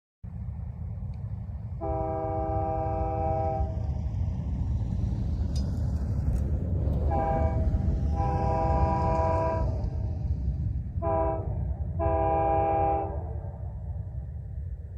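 Multi-chime locomotive air horn blown five times: a long blast about two seconds in, then a short and a long blast, then another short and a long blast. A steady low rumble runs underneath.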